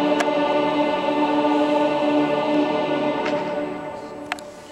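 Salt Lake Tabernacle pipe organ holding a full sustained chord, which fades out over the last second or so into the hall's reverberation.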